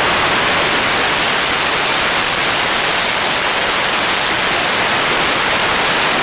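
Steady rush of wind over the microphone of a motorcycle-mounted camera at road speed, a loud even hiss with no engine note standing out.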